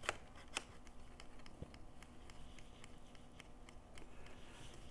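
Faint clicks and taps of a camera's quick-release plate being seated and clamped in a small tripod's mount, with a sharper click at the start and another about half a second later.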